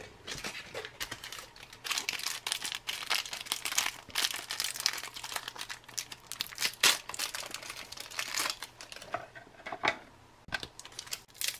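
Crinkling and tearing of a plastic ration food wrapper as it is ripped open and the contents pulled out by hand, busiest through the middle, easing off about ten seconds in, then a brief burst of crinkling again near the end.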